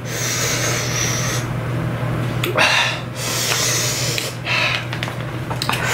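Heavy breathing through the mouth, air drawn in and blown out in several noisy breaths, the strongest about two and a half seconds in. It is a person panting to cool a mouth burning from very spicy noodles.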